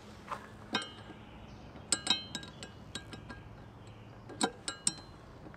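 Sharp metallic clinks, some with a short ring, in a few irregular clusters, as a socket wrench works on the nut holding a lawnmower's steel blade to loosen it.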